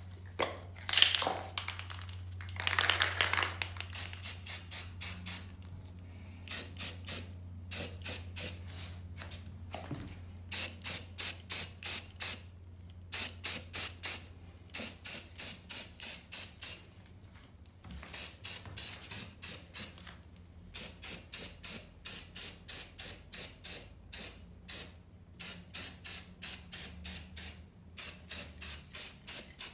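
Aerosol can of Rust-Oleum primer spraying, first in two longer sprays about one and three seconds in, then in rapid short bursts, about four a second, in runs of several bursts with short pauses between.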